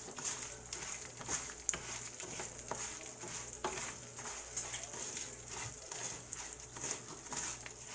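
Dry rice grains being stirred in hot oil in a frying pan with a black slotted spatula, repeated irregular scraping strokes over a light sizzle as the rice toasts before the liquid goes in.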